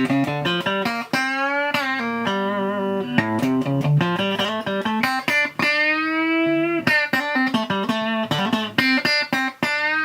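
Electric guitar played through an amp with a Boss CS-3 Compression Sustainer pedal, picked notes and chords ringing out with long, even sustain.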